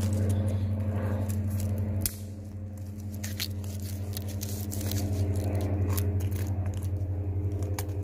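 Small saw edge of a metal survival card rasping at a thin bark-covered branch in short, scattered strokes, scraping off bark and wood shavings for fire tinder. A steady low hum runs underneath.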